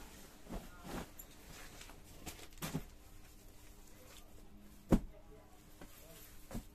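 Silk katan sarees being handled: short rustles of the stiff woven fabric as one is swept aside and another is picked up and laid out, with a sharp thump about five seconds in.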